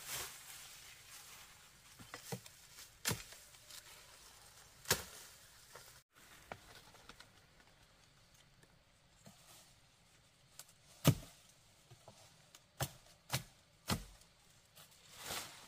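Machete chopping through leafy branches and stems: sharp, separate chops at uneven intervals, the loudest about eleven seconds in, with several in quick succession near the end.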